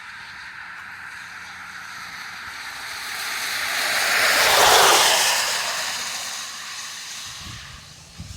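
A passing vehicle's tyre and road noise, swelling to a peak about five seconds in and fading away.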